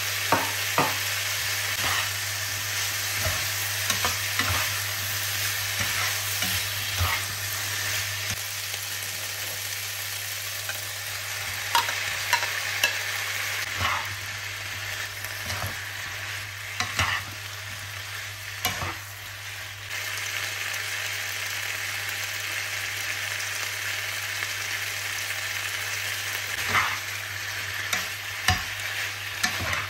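Vegetables and chicken sizzling in a hot nonstick wok while being stir-fried with a spatula, which scrapes and knocks against the pan now and then. A steady low hum runs underneath.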